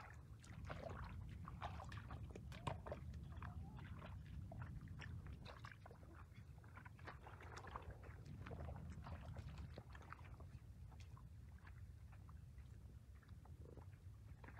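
Bare feet squelching and splashing through mud and shallow standing water, as a scatter of short wet sounds over a steady low rumble.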